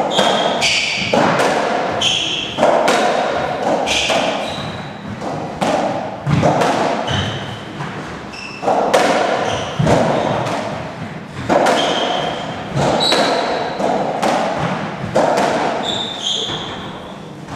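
A racketball rally on a squash court: the rubber ball is struck by the racket and hits the walls about once a second, each hit echoing around the court. Shoes squeak briefly on the wooden floor between shots.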